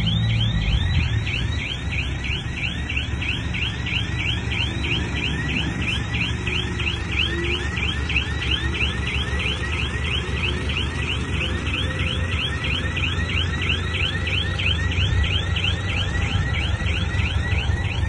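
Heavy diesel machinery engine running under an electronic warning alarm that repeats a short falling chirp about three times a second, the kind of alarm that sounds when a dozer or truck reverses.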